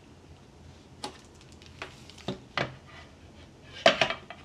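Hard plastic clicks and knocks from handling a fish finder display unit on its mount and its power cord, with a louder clatter of knocks near the end as the unit is set down on a wooden table.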